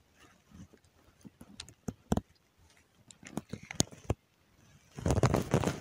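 Scattered sharp clicks and ticks from handling a float fishing rod and its spinning reel, then a brief, louder burst of noise near the end.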